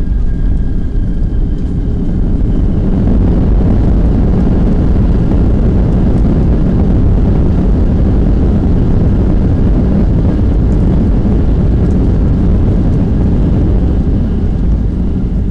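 Loud, steady roar inside a Boeing 737-700 cabin: the CFM56-7 jet engines and rushing air during the landing. It swells about two and a half seconds in, holds, and eases off near the end.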